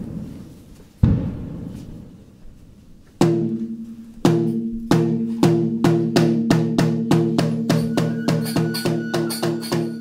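Taiko drum struck at a Shinto shrine ritual: a few slow, widely spaced strikes that ring out, then a pitched beat that starts about three seconds in and speeds up steadily to about three strokes a second. A thin high held note joins near the end.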